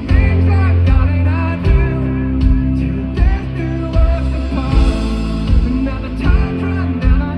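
Rock band playing live: drums hitting a steady beat over bass and guitars, with a singing voice on top.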